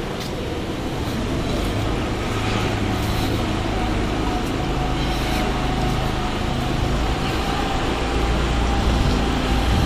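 Steady low background rumble of outdoor ambient noise, with no distinct events.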